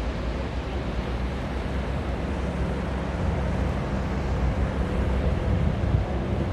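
Surf and wind: a steady low rushing that swells a little in the second half.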